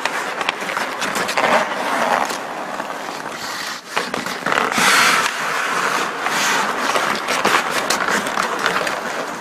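Two players' hockey skates scraping and cutting on the ice in uneven surges, with scattered sharp clicks.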